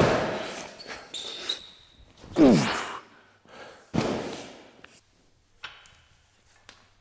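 A strongman throwing a heavy sandbag over a bar: the bag lands with an echoing thud, then comes a loud grunt with falling pitch on the next throw, and about a second and a half later that bag lands with another echoing thud. After that only faint clicks.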